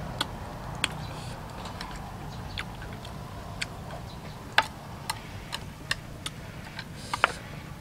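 Irregular sharp clicks and taps of a metal spoon and plastic chopsticks against a metal serving tray while picking apart braised fish, about a dozen over several seconds.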